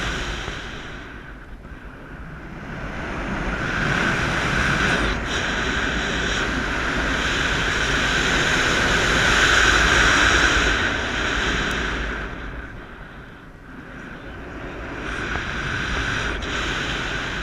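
Airflow rushing over the camera microphone of a paraglider in flight, a steady noisy rush that swells and fades in long waves, easing off about two seconds in and again about thirteen seconds in.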